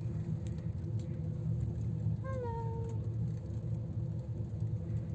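Steady low rumble and hum inside a moving Banff Gondola cabin as it rides up the cable. A little past two seconds in comes a short pitched cry from a person that falls in pitch.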